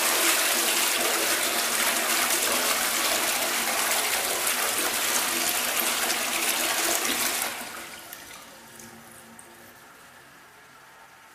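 A toilet flushing: a loud rush of water that holds for about seven seconds, then dies away to a much quieter steady hiss.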